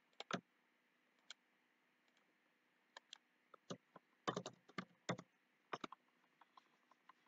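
Faint, scattered clicks of a computer mouse and keyboard keys, in irregular ones and twos with a quick cluster about four to five seconds in.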